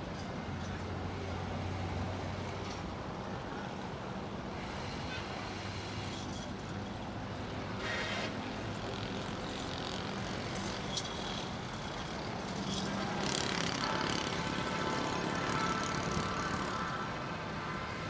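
Steady low rumble and hum of background noise, with a faint higher-pitched drone joining about thirteen seconds in.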